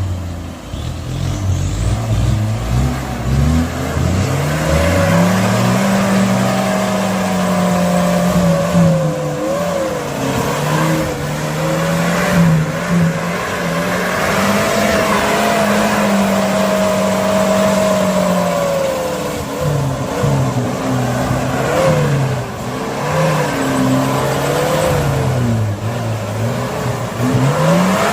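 Stock Suzuki Caribian off-roader's engine working under load, its pitch held steady for stretches and then rising and falling again and again as the throttle is opened and eased.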